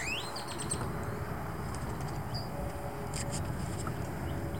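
Wind buffeting the microphone in a steady low rumble, with a few short bird chirps, one near the start and a cluster about three seconds in.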